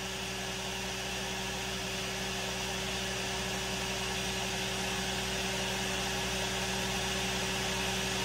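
Steady electric hum with an even airy whir, like a small motor-driven blower running continuously.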